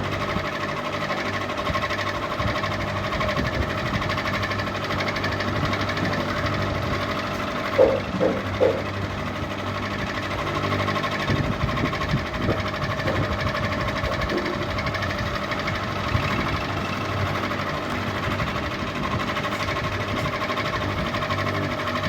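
Ceiling fan running with a steady mechanical rattle over a hum, with three brief louder sounds about eight seconds in.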